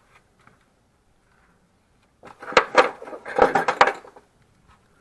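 Metallic clicking and clattering, like hard objects or tools being knocked together and handled. It comes as a burst of about two seconds, a little before the middle, with several sharp knocks in it.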